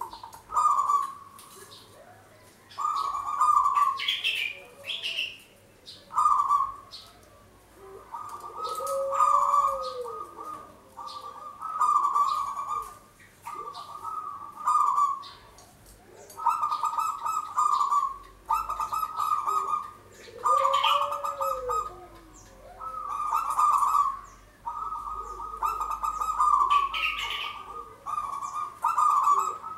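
Zebra dove cooing: a steady run of short trilled coos, each about a second long and coming about every one and a half seconds, with a lower rising-and-falling coo twice.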